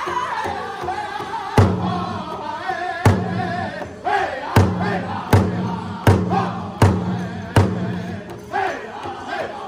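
Powwow drum group singing an intertribal song in a high-pitched chorus around a big drum, with loud unison drum strikes, two widely spaced ones and then about one every three-quarters of a second, which stop near the end while the singing goes on.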